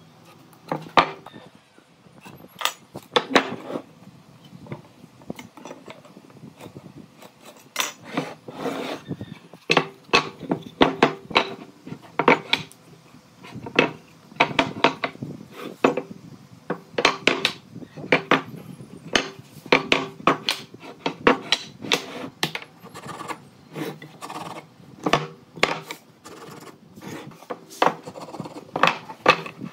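Wooden pieces and tools being handled, giving sharp, irregular knocks and clatters, sometimes several in quick succession.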